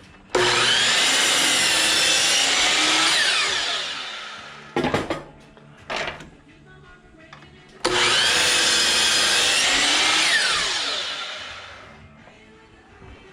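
Table saw trimming the end off a board, twice. Each time the saw starts abruptly, runs steadily for about three seconds, then is switched off and winds down with falling pitch. A couple of short knocks sound in between.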